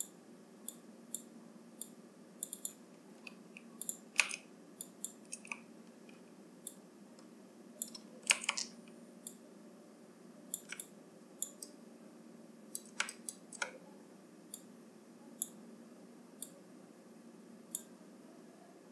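Irregular clicks of a computer mouse, some in quick pairs and a few heavier, over a faint steady low hum.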